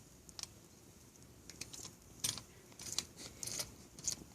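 Faint crackling of a wood fire, with scattered sharp pops and ticks a few times a second.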